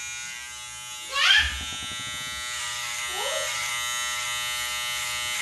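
Electric hair clippers buzzing steadily as they cut short hair at the nape of the neck. A short, loud vocal sound comes about a second in, and a fainter one just after three seconds.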